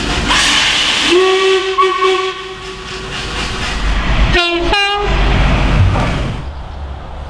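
A hiss, then a locomotive sounding one steady note for about a second. A TransPennine Express Class 185 diesel multiple unit then gives two short blasts on its horn and runs past.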